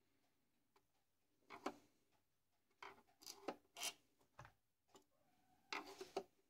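A few faint clicks and scrapes of a screwdriver working small screws out of the plastic frame of a Volvo 940 instrument cluster, in short clusters about a second and a half in, around the middle, and near the end.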